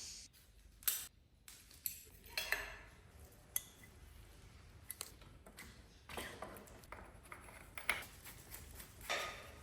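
Scattered metallic clinks and taps, a few of them short ringing pings, from tools and bicycle crank parts being handled.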